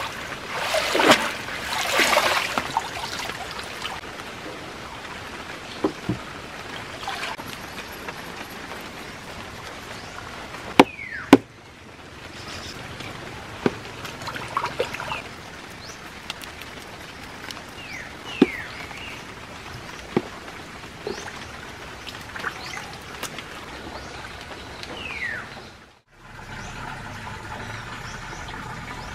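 Live tilapia thrashing and splashing in a woven basket held in water for the first few seconds, then steady trickling water in a concrete channel with scattered sharp clicks and knocks.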